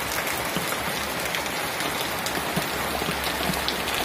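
Heavy rain pouring down steadily, a dense hiss full of small drop impacts on leaves and wet ground.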